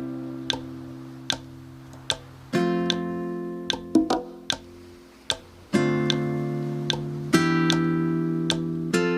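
Background music: strummed acoustic guitar chords that change every two to three seconds over a light ticking beat.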